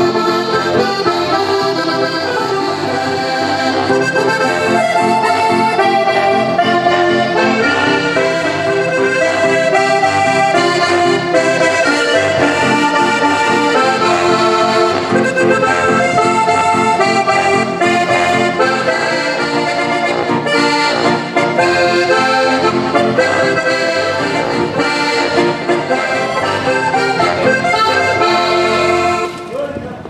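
Button accordion playing a fast-moving traditional Alpine folk tune, stopping about a second before the end.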